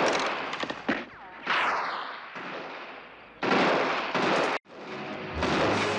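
Gunfire from a 1960s Western film soundtrack: several sharp rifle shots, one followed about one and a half seconds in by a falling ricochet whine. Music comes in near the end.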